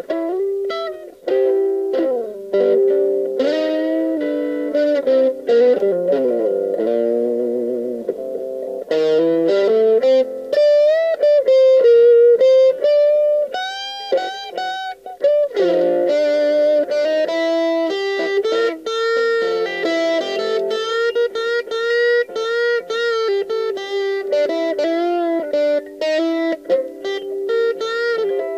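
Electric guitar playing riffs and lead lines, with notes bending up and down in pitch.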